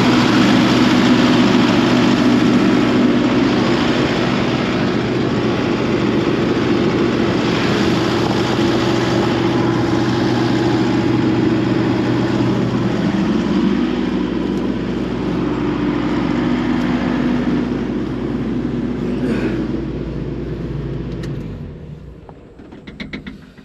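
John Deere 135D excavator's Isuzu diesel engine running steadily with its fan belts freshly fitted, then shutting down and winding to a stop near the end.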